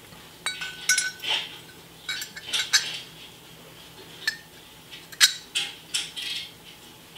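Steel planetary-axle parts clinking and rattling against each other and a steel housing as they are handled: a run of irregular metallic clinks, a few ringing briefly.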